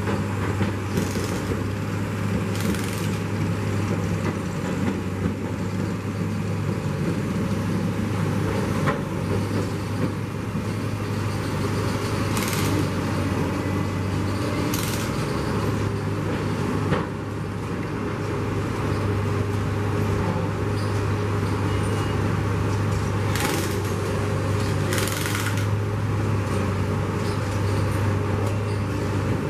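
Engine of a railway track-laying machine running with a steady low drone, with several brief hisses and a couple of sharp knocks.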